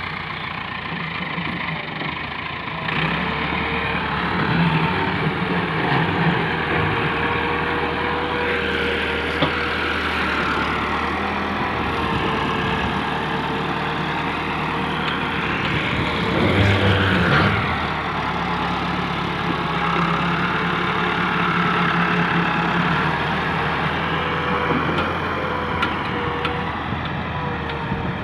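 Massey Ferguson MF 385 tractor's four-cylinder diesel engine running under load as it pulls a heavily loaded trolley. The engine is steady throughout, gets louder about three seconds in, and surges briefly a little past the middle.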